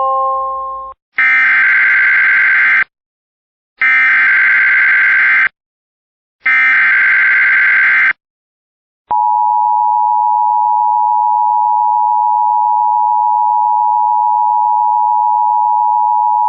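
Emergency Alert System header tones: the last notes of a chime, then three identical screeching digital data bursts, each about a second and a half long with a second's gap between them. About nine seconds in comes the steady two-tone EAS attention signal, a long unbroken beep.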